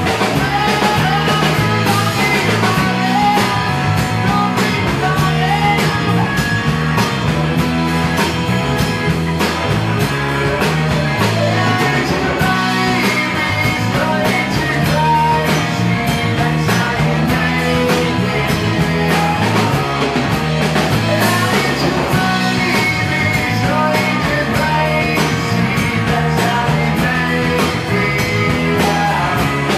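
Live rock band playing in a bar: electric guitars and drum kit, with a singer's voice over them.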